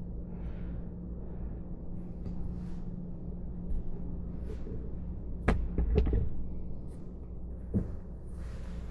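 A few sharp knocks over a low steady hum: two close together about halfway through, the loudest sounds here, and a lighter one near the end.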